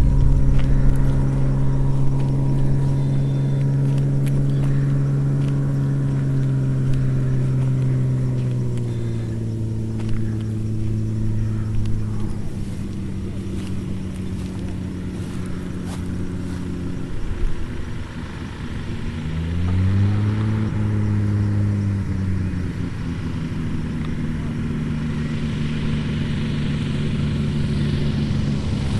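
Cessna 182 Skylane's piston engine and propeller droning steadily, the pitch stepping down several times as power is reduced for landing, then rising and falling once more about twenty seconds in before settling.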